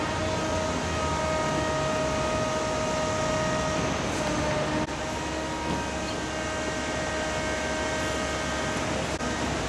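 Steady city-square background hum of traffic and machinery with a constant whining tone running through it, broken by two brief clicks about five and nine seconds in where the recording cuts.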